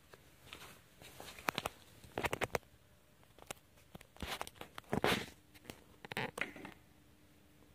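Handling noise: scattered clicks, knocks and short rustling bursts as the phone and hands move about the parked GoPed scooter, whose engine is not running. A faint steady hum comes in about five seconds in.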